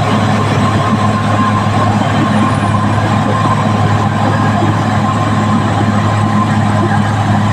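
Caterpillar D6R XL bulldozer's diesel engine running steadily under work, a loud, even drone with a faint steady whine above it.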